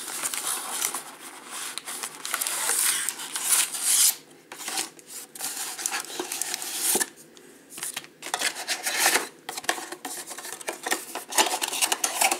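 A cardboard retail box being opened and shaken out: scraping and rubbing of the cardboard flap and the wrapped card packs sliding out, then rustling and light taps as the packs drop onto the table and are pulled from the box.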